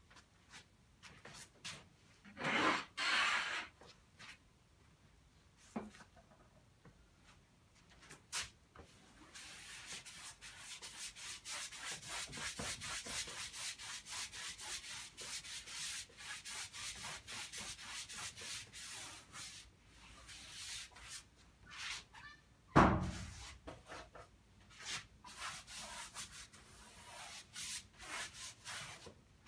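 Paintbrush scrubbing oil paint onto unstretched canvas in rapid repeated strokes, with two louder rubs about three seconds in and a single loud thump about 23 seconds in.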